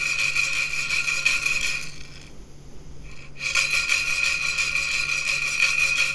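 Coffee beans rattling and scraping inside a clay tigle (handheld clay roaster) shaken steadily over a gas burner, partway through the roast before first crack. The shaking pauses for about a second and a half, then resumes.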